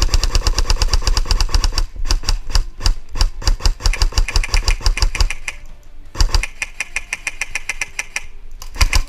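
Electric airsoft rifle firing on full auto: rapid, evenly spaced shots in two long bursts over the first five seconds, then short bursts around six seconds and near the end.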